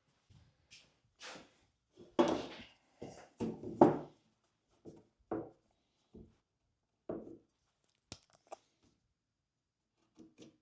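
A string of short knocks and clunks from tools and wood being handled on a bench while a square is set in place for marking out, the loudest about two and four seconds in.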